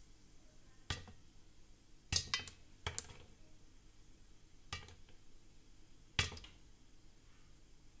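Popcorn kernels popping in a covered steel pot with a glass lid: scattered sharp pops, a cluster of four or five around two to three seconds in, then single pops with gaps of a second or more.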